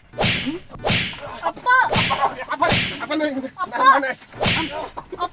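Five sharp slaps, a second or so apart, with short shouts and cries between them.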